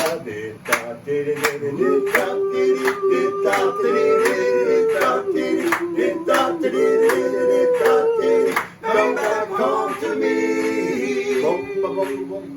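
Vocal group singing close doo-wop harmony a cappella, with the backing instruments dropped out. A sharp click keeps time, roughly every half second or so, and there is a brief break about nine seconds in.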